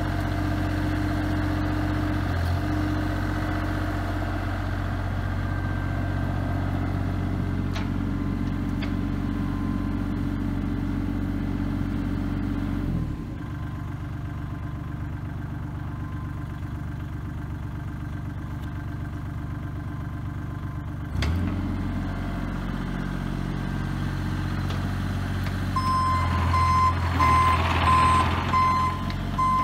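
Bobcat E35 compact excavator's diesel engine running steadily; about 13 seconds in the engine sound drops lower for about eight seconds, then comes back up. Near the end the machine's travel alarm sounds in repeated beeps over the engine.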